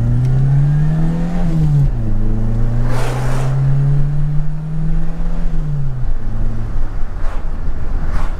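Renault Super 5 GTS four-cylinder engine heard from inside the cabin, its exhaust running a straight tube in place of the intermediate silencer. The revs climb for about a second and a half, drop, climb again and hold for a few seconds, then fall away about six seconds in, over steady road and wind noise. A short rush of a passing truck comes about three seconds in.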